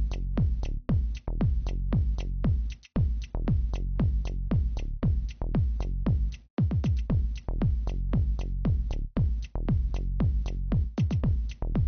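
Electronic background music with a steady, fast kick-drum beat.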